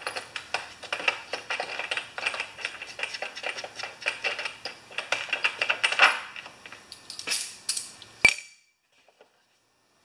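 Hand work on a lawn mower's engine cover: quick, irregular clicks and clinks of hard parts and fasteners being handled, ending in one sharp clack about eight seconds in.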